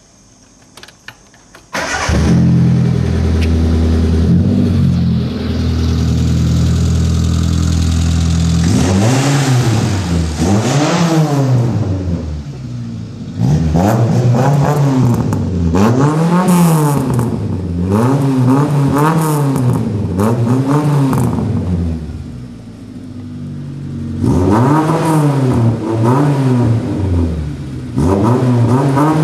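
1988 Suzuki Sierra's engine, fitted with extractors, a 2-inch exhaust and a sports muffler, starting about two seconds in and idling steadily. From about nine seconds in it is revved again and again, each blip rising and falling in about a second, in runs broken by short spells back at idle.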